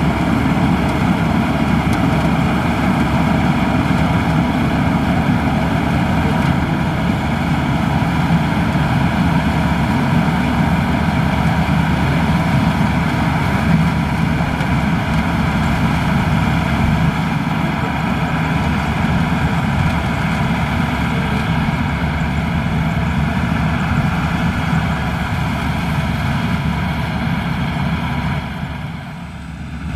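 Maxxi Bimo Xtreme rice combine harvester running steadily under harvesting load, engine and threshing machinery droning together. The sound drops away briefly near the end.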